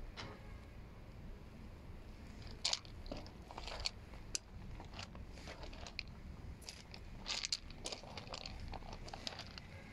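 Footsteps crunching on gravel at an irregular pace, over a low steady rumble.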